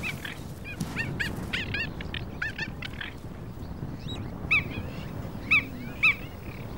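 Cheetahs chirping in a courtship encounter: a quick series of short, high, bird-like calls over the first three seconds, then three louder single chirps near the end.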